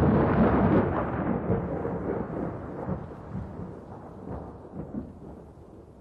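Thunder rolling and rumbling as it dies away after a clap, with a few sharp crackles along the way, fading steadily.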